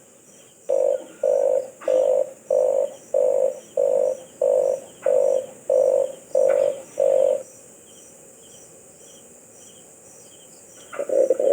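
Red collared dove calling: about a dozen low, croaking coos in an even run of about two a second, then a pause before a new series starts near the end. Faint, regular insect chirping runs behind it.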